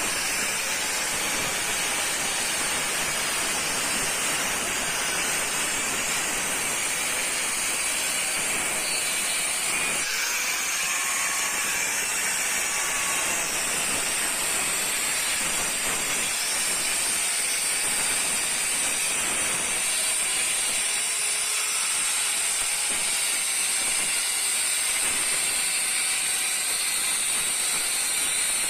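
Bosch GDC 120 electric wall cutter running at full speed with its diamond blade cutting a groove down a brick wall: a steady, high grinding hiss at an even level throughout.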